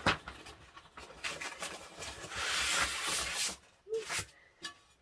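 Rustling and light knocks as something is handled, with a longer rustle lasting about a second near the middle.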